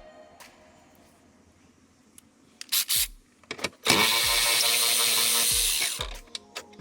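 A few short knocks of tools on metal, then a cordless power tool's motor runs steadily for about two seconds and stops.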